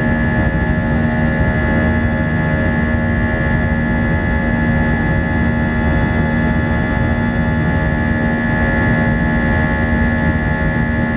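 Airbus A320 turbofan engines at climb power, heard inside the cabin over the wing: a loud, steady rumble with constant whining tones running through it.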